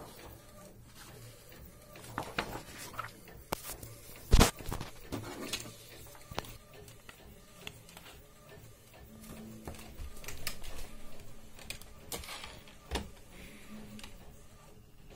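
Allwin pouch laminator running, its rollers drawing a laminating pouch of printed business cards through: a faint low hum with scattered clicks and rustles of the pouch, and one sharp knock about four seconds in.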